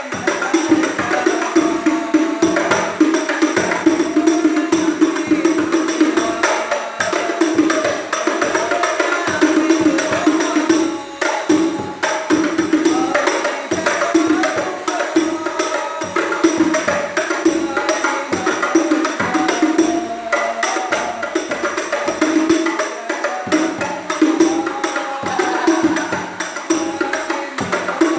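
Terbang frame drums (rebana) played together in a continuous, busy interlocking rhythm.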